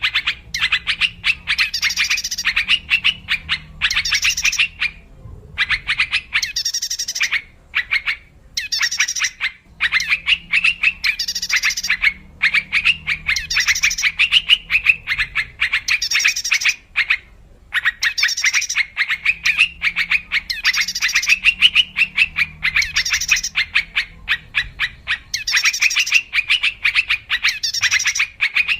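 Yellow-vented bulbul (trucuk) song used as a lure call: bouts of fast, bubbly chattering notes, broken by short pauses of about a second.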